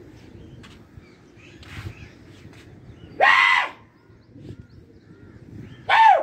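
A crow cawing twice, two loud harsh calls about three seconds apart, over faint chirps and distant town rumble.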